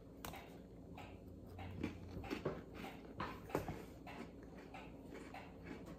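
Biting into and chewing a thick ginger shortbread cookie: a faint run of small, irregular crunches, thinning out after about four seconds.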